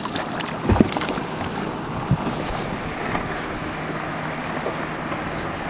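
A hooked largemouth bass splashing at the water's surface as it is landed, with a dull thump under a second in and a sharp knock about two seconds in. Steady wind and water noise follow.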